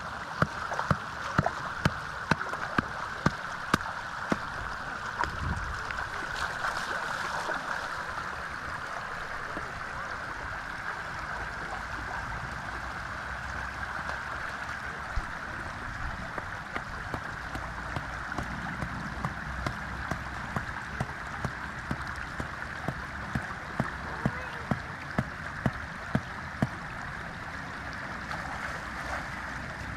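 Shallow floodwater rushing steadily across a road. Runs of sharp regular clicks, about two a second, come near the start and again in the second half.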